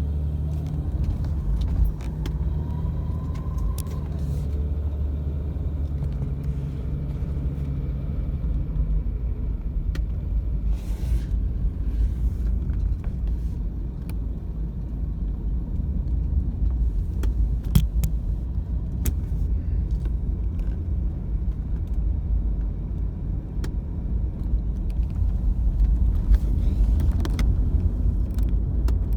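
Car running with a steady low rumble, with sharp clicks now and then over it at irregular intervals. A faint rising whine comes through in the first few seconds.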